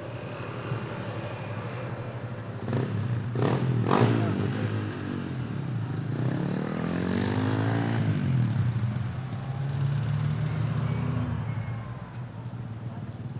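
Street traffic: a motor vehicle's engine passes close by about six to eight seconds in, its note swelling and then falling away, over a steady low engine hum. Two sharp knocks a little after three and four seconds in are the loudest sounds.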